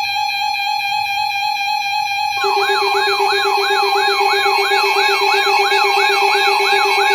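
Electronic alarm tone: a steady buzzy tone, joined about two and a half seconds in by a lower steady tone and a siren-like warble sweeping up and down about four times a second.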